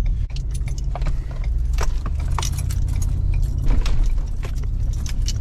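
Inside a moving truck's cab: a steady low rumble of engine and tyres, with scattered rattles and jingling clicks as the cab jolts.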